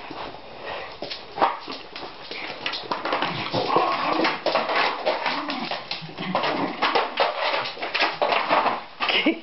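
Two schipperkes playing rough with an empty plastic bottle: a quick, irregular run of plastic clicks and clatters as it is grabbed and batted across the floor, mixed with short dog vocalisations.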